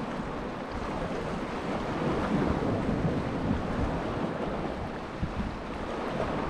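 Sea waves washing against a rocky shore, with wind buffeting the microphone: a steady rushing that swells a little and eases again.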